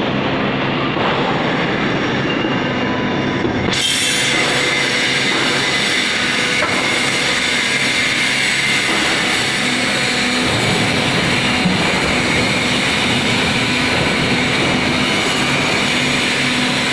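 VMS30 vertical baler running: a steady, loud mechanical hum and clatter. A high hiss joins abruptly about four seconds in.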